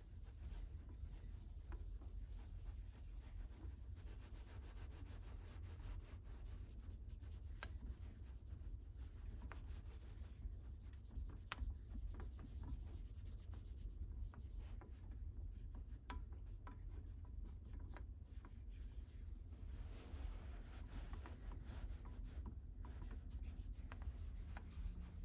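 Faint hand sanding: sandpaper rubbing against the steel blade of a Landis leather splitter, with scattered light clicks.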